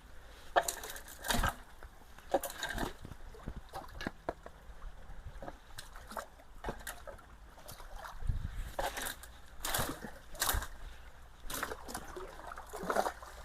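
Ditch water sloshing and splashing in short, irregular bursts as debris is pulled and worked loose from a clogged culvert, with a couple of low thuds.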